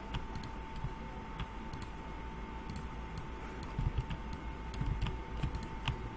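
Irregular clicks of a computer keyboard and mouse in use, over a steady faint hum.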